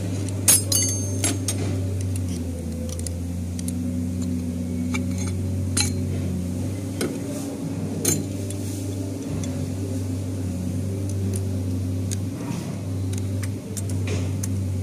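Metal clinks and clicks as steel clutch plates and a screwdriver knock against the transmission clutch drum, some ringing briefly, the loudest cluster about a second in. A steady low machine hum runs underneath.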